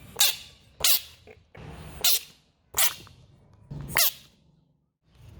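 Bullfrog giving five short, harsh defensive calls, roughly one a second, each falling in pitch.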